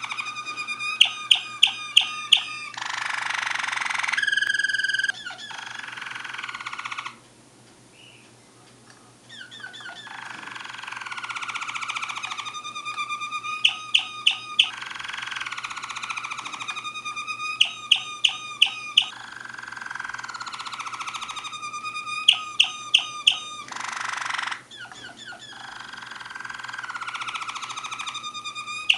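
A Waterslager (Malinois) song canary singing a long, varied song. It holds rolling, sustained phrases and falling slides, broken every few seconds by quick runs of about five sharp, ringing notes. The song drops away for about two seconds roughly a quarter of the way through.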